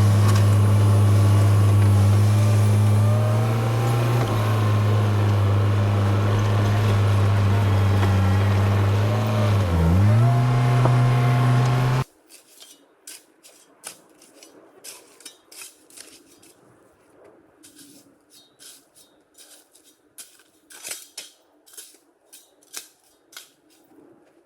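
A heavy machine's engine runs steadily at high load and briefly bogs down and recovers about ten seconds in. It cuts off abruptly about halfway through, giving way to faint, scattered clicks and scrapes.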